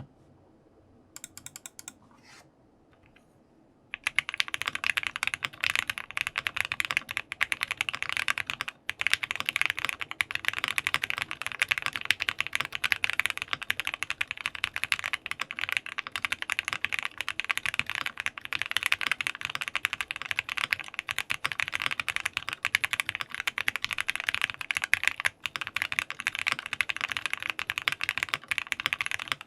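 Fast, continuous typing on a custom mechanical keyboard: a Jelly Epoch with a PC plate, lubed Gateron Ink Black v2 linear switches and DMK keycaps. A few faint clicks come first, then steady rapid keystrokes start about four seconds in.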